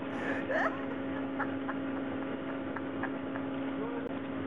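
A steady low electrical hum at one pitch. About half a second in there is a brief rising squeak-like sound with a short hiss, and a few faint clicks follow.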